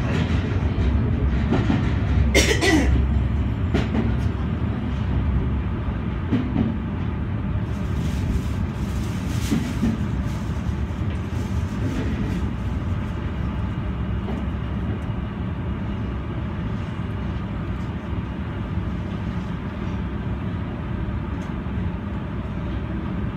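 Running noise of a Senboku Rapid Railway 7020 series electric train, heard inside the driver's cab: a steady low rumble of wheels on track, with a brief loud sharp noise about two and a half seconds in and scattered faint clicks a little later.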